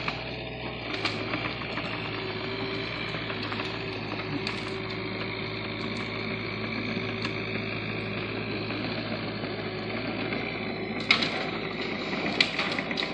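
Excavator's diesel engine running steadily, with a few sharp clanks near the end.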